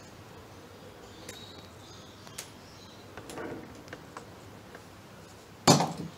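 Faint clicks of bonsai hand tools and soft rustling as casuarina branches are handled and trimmed, then a single loud knock near the end.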